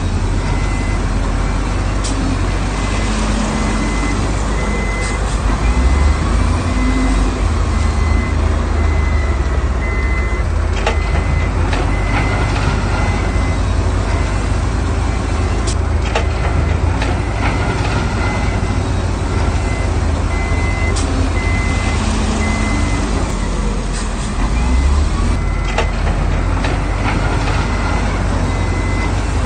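Heavy diesel construction machinery running at a worksite, with a reversing alarm beeping in a steady on-off rhythm throughout. The engine grows louder briefly about six seconds in and again near the end, and a few sharp clanks sound over it.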